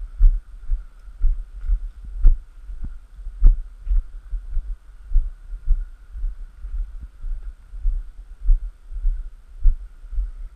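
Footsteps of a person walking in snow, heard as low dull thumps about twice a second through a handheld camera, with a couple of sharper clicks about two and three and a half seconds in.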